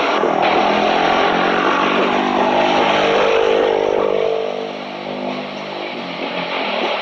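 Twin-engine jet airliner at takeoff power on its takeoff roll and rotation: a loud, steady engine noise with whining tones that shift in pitch, easing somewhat about five seconds in.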